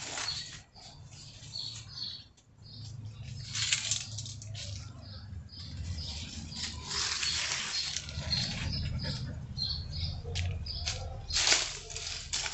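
Small birds chirping in short high notes, many times over, above a low steady rumble and several louder bursts of rustling noise.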